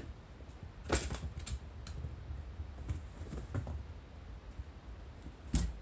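Irregular soft taps and light knocks of kittens scampering on tatami mats, with two sharper knocks about a second in and near the end.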